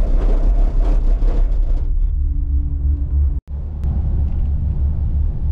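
Low, steady rumble inside a moving gondola cabin, the noise of the car riding the cable. It cuts out for an instant about three and a half seconds in, then carries on.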